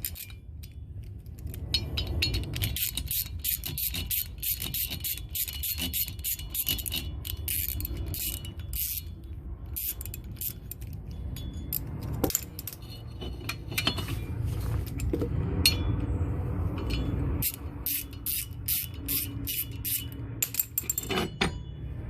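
Ratchet wrench clicking in runs, mixed with metal-on-metal clinks and knocks, as the screw holding the brake disc is undone.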